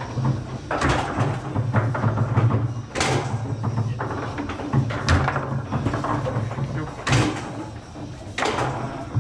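Foosball table in play: sharp knocks and clacks as the ball is struck by the players' figures and hits the table, coming every second or two, over background music.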